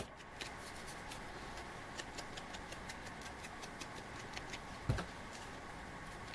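Quiet, steady room hum with faint, scattered clicks as paper and a small ink pad are handled by hand, and one soft thump about five seconds in.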